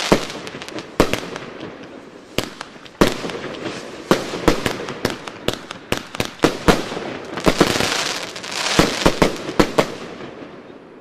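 Zena Mayhem fireworks cake (a cake box) firing its last shots: an irregular string of sharp bangs, several a second at times, over a continuous crackling of the stars. The crackle swells once more about three-quarters of the way through, then dies away near the end.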